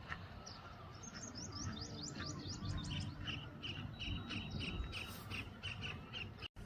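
Bird song: a fast run of short, high chirps, each sliding downward, then a steady string of repeated chirps at about five a second, cut off by a brief dropout near the end.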